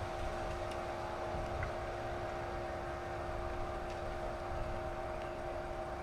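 A steady, unchanging hum holding a few fixed tones, over a low, gusty rumble of wind on the microphone.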